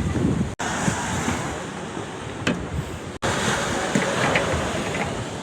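Wind buffeting the microphone over the rush of sea waves, broken by two brief dropouts.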